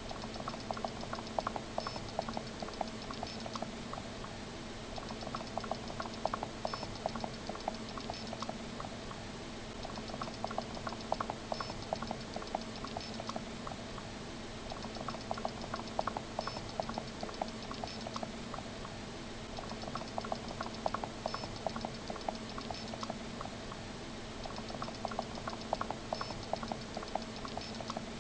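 Looped cartoon sound effect of rapid light clicking or pattering in bursts of about three seconds, repeating about every five seconds, over a steady low hum and a thin high whine.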